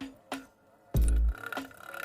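Electronic background music with a heavy bass beat. The beat drops out briefly just after the start and comes back about a second in.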